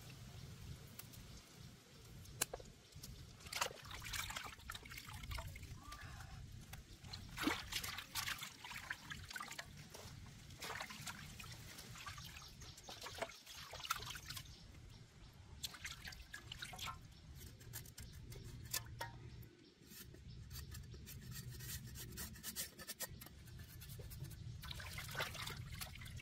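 Water trickling and dripping, with irregular small clicks and knocks throughout.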